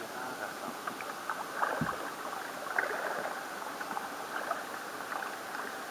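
Kayak paddling in calm water: the paddle blades dipping and pulling, with drips, small splashes and water trickling along the hull. A dull knock comes about two seconds in.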